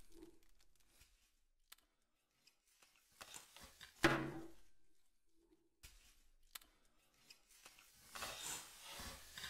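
A single hard thump with a short ringing tail about four seconds in, a few faint ticks, and bubble wrap crinkling under handling near the end; otherwise near silence.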